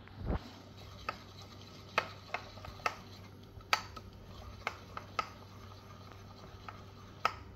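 Steel spoon stirring thick batter in a white ceramic dish, with about ten irregular clinks as the spoon knocks against the dish.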